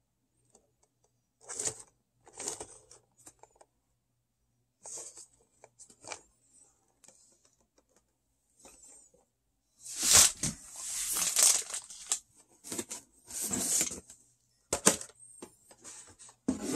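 Hands handling a cardboard Funko Pop box and its packaging just off the table: irregular bursts of rustling, scraping and clicks, sparse at first and heaviest from about ten seconds in.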